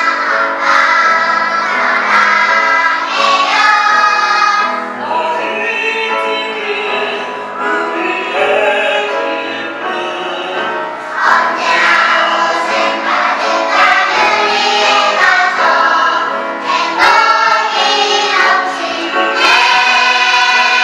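Children's choir singing in concert, held sung notes running on without a break.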